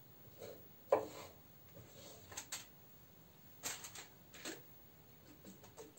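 Several light, scattered knocks and taps of a knife and vegetables on a wooden cutting board, faint and irregular.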